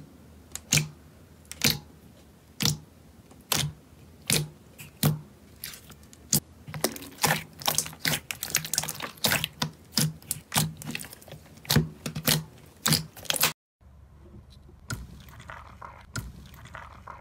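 Slime being poked and squeezed by hand, making sharp wet pops and clicks as trapped air bursts: about one a second at first, then faster and more crowded. After a sudden break near the end, a softer, fainter crackle as another slime is squeezed.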